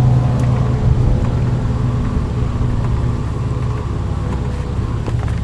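Twin outboard motors of a Playcraft Twin X-Treme 2600 pontoon boat running at speed: a steady engine hum that fades a little as the boat pulls away.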